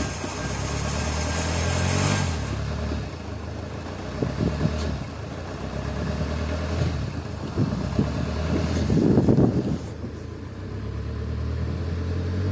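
Honda Accord VII 2.2 i-CTDi four-cylinder turbodiesel running badly after a turbo failure: it idles unevenly, revs up and drops back about two seconds in, and swells louder again briefly near the end.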